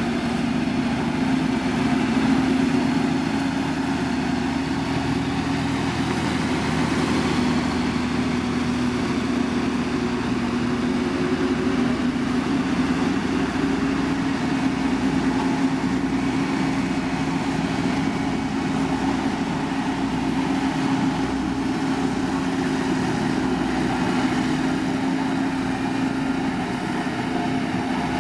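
Diesel engine of a heavy road-building machine (motor grader or road roller) running steadily, its pitch stepping up slightly about twelve seconds in.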